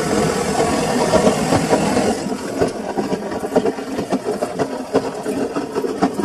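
Samsung washing machine running mid-cycle: a steady motor hum with irregular clunks and rattles as the drum turns.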